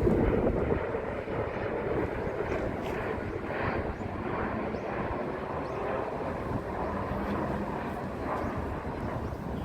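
Jet airliner engine noise at an airport, a steady rushing sound, loudest at the start and easing slightly.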